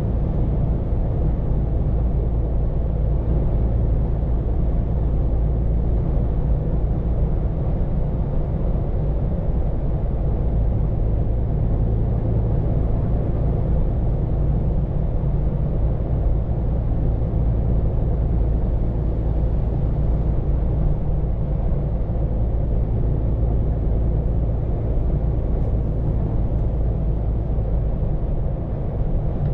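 Scania P410 car-carrier truck driving at a steady pace, heard from inside the cab: a constant low engine drone with road and tyre noise.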